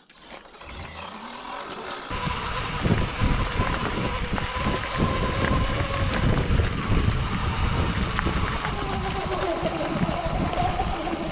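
Sur-Ron electric dirt bike pulling away and riding a rough dirt trail: a thin electric motor whine that climbs in pitch near the end, over steady rushing noise from the tyres on the ground and the moving air.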